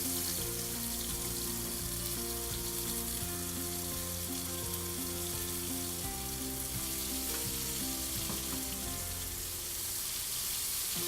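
Wet garlic-and-spice masala paste frying in hot mustard oil in a pan: a steady sizzle.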